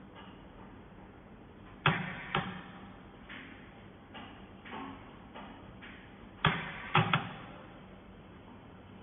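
Sharp knocks and clacks of hard objects, two loud ones about two seconds in, a few lighter ones after, and a loud cluster of three near the end, over a faint steady hum.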